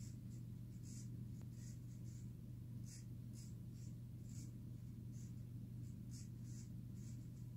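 Faint scratchy rustling of a picture book's paper pages being handled and turned, in short soft bursts, over a steady low hum of room tone.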